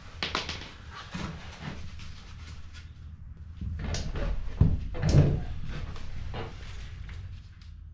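Rigid foam insulation board being picked up and handled: scattered knocks, rubs and scrapes, with two louder knocks about halfway through.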